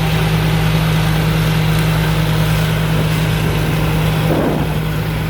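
Rice combine harvester with a Hino diesel engine running steadily, a constant low drone with the machinery working.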